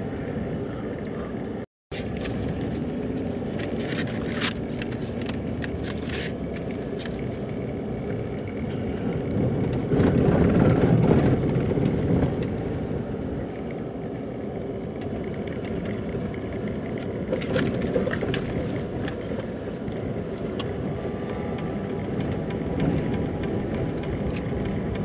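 In-cab road noise of a high-clearance vehicle driving on a dirt road: a steady rumble of engine and tyres, with scattered rattles and clicks. It grows louder for a couple of seconds about ten seconds in, and cuts out for an instant near two seconds in.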